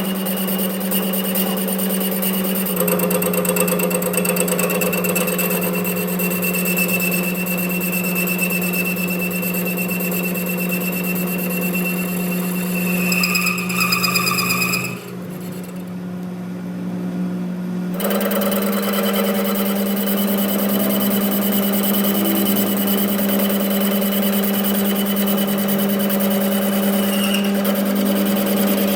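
Metalworking machine in a workshop running with a steady hum and a high whine, with working noise over it. About halfway through, the sound goes dull for around three seconds before the machine noise returns.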